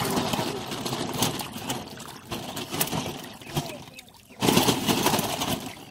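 Many carp and other fish thrashing and splashing in shallow water, crowded together in a drawn fishing net. The splashing dips briefly about two-thirds of the way through, then comes back at its loudest.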